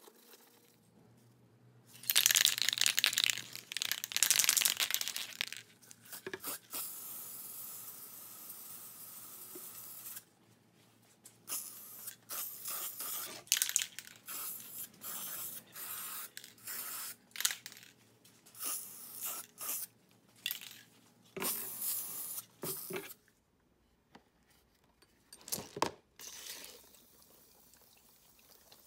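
Rag scrubbing on a sheet-metal tool box, then aerosol spray paint hissing: one longer steady spray, then many short bursts of about half a second to a second, as the box is coated black.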